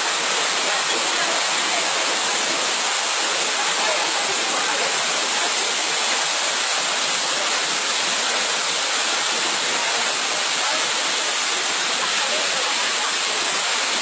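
Waterfall rushing steadily into a rock pool: an even, unbroken hiss of falling water.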